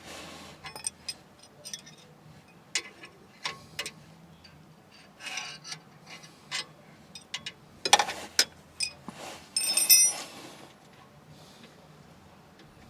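Irregular clicks and knocks at an uneven pace, with a sharp knock about eight seconds in and a louder ringing clatter just before ten seconds.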